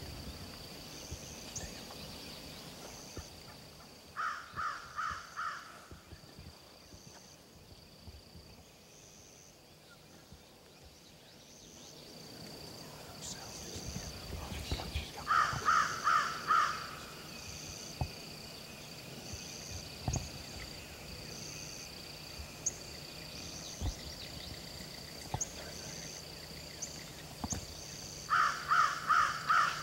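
A crow cawing in three bursts of four or five quick harsh caws, about twelve seconds apart, over a steady high-pitched drone with faint repeated chirps.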